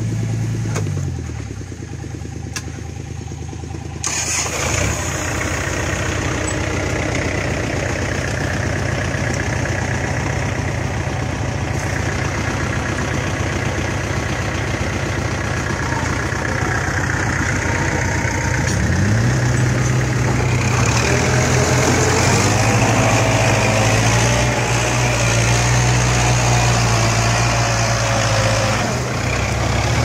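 Kubota L4708 tractor's diesel engine running: its speed drops about a second in, then it picks up again, revs up about 19 seconds in and holds high revs under load while the tractor is pulled out of the mud.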